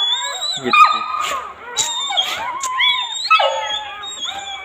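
Newborn Labrador puppies squeaking and whimpering: a string of short, high, wavering cries, with a falling whine a little past the middle.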